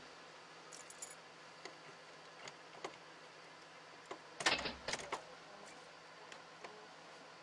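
Car ignition key being turned: a cluster of clicks with a short low rumble about four and a half seconds in. Scattered small clicks and rustles over a faint steady hum come before it.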